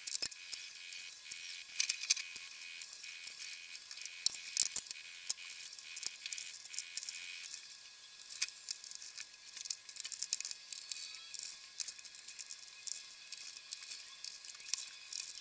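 Rapid small clicks, taps and light metallic rattles of screws and thin metal cover plates being handled and screwed down with a screwdriver. They sound thin and high-pitched, with almost no low end.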